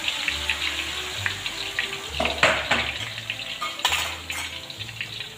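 Battered banana pieces frying in hot oil: a steady sizzle full of fine crackles, surging louder about two and a half seconds in and again near four seconds.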